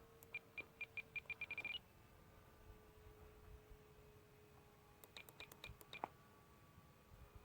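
Spektrum iX12 radio transmitter beeping as its trim buttons are pressed during in-flight trimming. A run of short high beeps comes faster and faster and ends on a higher note, then a second cluster of beeps follows about five seconds in, over a faint steady hum.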